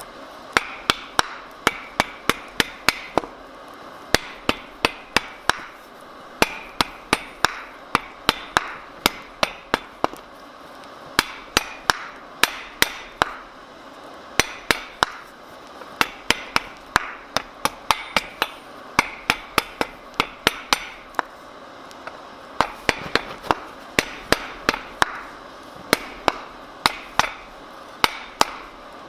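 Hammer blows on the red-hot twisted steel handle of a forged flux spoon laid on a wooden block over the anvil. The blows come in quick runs of about three or four a second, each with a short metallic ring, broken by brief pauses.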